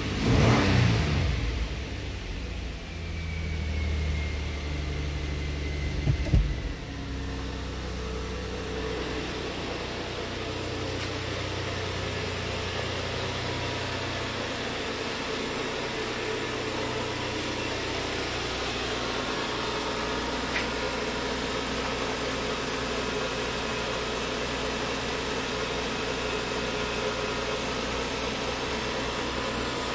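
A 2009 Nissan Pathfinder's 4.0-litre V6 runs at a fast idle near 2,000 rpm. It is heard first from the driver's seat, then up close at the open engine bay, holding steady. There is one sharp knock about six seconds in.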